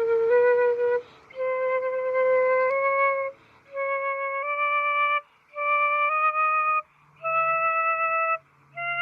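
Flute playing a slow rising series of held single notes, climbing in small steps. They come one or two to a breath, with short gaps between.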